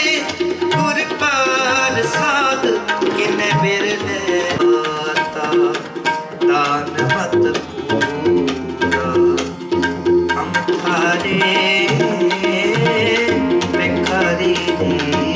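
Devotional music led by tabla, over held notes from a melodic instrument, with a voice singing in the first few seconds.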